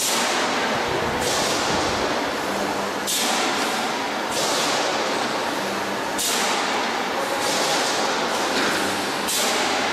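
Radiator panel end seam welding machine running: a steady, loud machine noise with a sharp hiss that starts about every one to two seconds and fades away.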